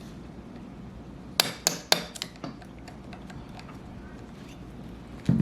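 Small hammer tapping on metal parts of an AR-15 lower receiver: five quick, sharp taps about a quarter-second apart, starting about a second and a half in.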